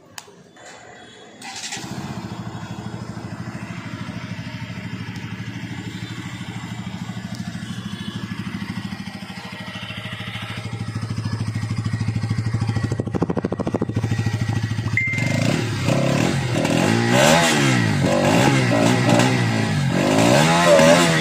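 Sports motorcycle on its stock exhaust, idling steadily from about two seconds in, then revved several times near the end, the engine note rising and falling with each throttle blip.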